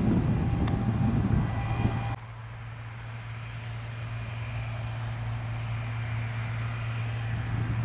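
Farm machinery diesel engines running: a loud, rough stretch that cuts off abruptly about two seconds in, giving way to a quieter, steady low engine hum that slowly grows louder.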